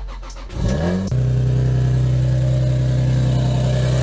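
Lexus IS300's 2JZ-GE inline-six engine cranking and catching about a second in, rising briefly in pitch and then settling into a steady idle. It runs through freshly installed aftermarket headers, which the owner says have a small exhaust leak.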